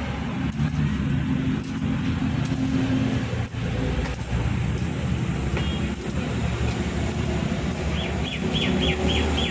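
Road traffic: vehicle engines running and passing close by, a steady low rumble. Near the end a quick run of about six high chirps, roughly four a second.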